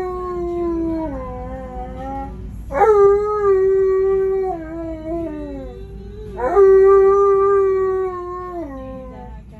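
Alaskan Malamute howling: long, steady howls that fall in pitch at the end. One runs on from before, a new one starts about three seconds in, and another about six and a half seconds in. A low rumble from the van riding along lies underneath.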